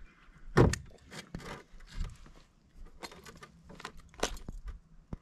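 Irregular clicks, knocks and rustles of hands handling a small smallmouth bass and fishing tackle while the hook is taken out, close to the microphone. The loudest knock comes about half a second in.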